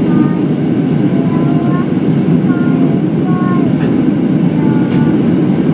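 Steady roar of engines and rushing air inside the cabin of an Airbus A319 climbing out after takeoff, with a few faint snatches of passenger talk above it.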